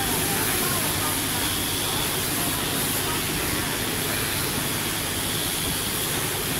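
WBT electric fabric scissors running steadily while the blades cut through thick fabric: a continuous motor hum with a high hiss above it.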